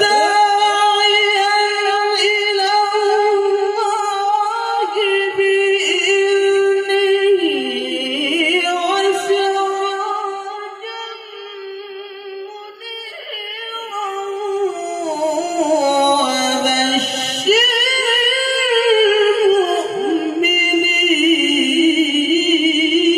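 A man reciting the Quran in the melodic tilawah style, singing into a microphone in long, drawn-out melismatic phrases. The voice glides up sharply at the start and holds high. It grows quieter and lower around the middle, then swells and climbs again toward the end.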